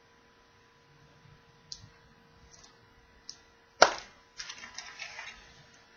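A glitter-covered plastic surprise egg snapping open with one sharp crack about four seconds in, after a few small clicks. A flurry of smaller plastic clicks and rustles follows as the opened egg is handled.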